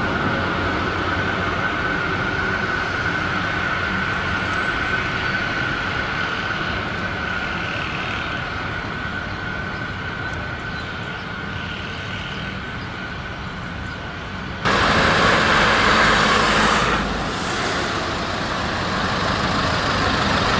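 Narrow-gauge articulated tram approaching on a single-track line: a running rumble with a steady high-pitched tone over it. After a sudden cut about two-thirds in, road traffic is heard, with a van passing close and loud for a couple of seconds, then easing.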